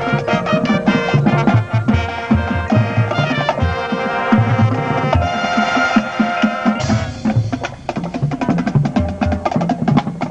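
Music with drums and other percussion beating a steady rhythm under several pitched instruments.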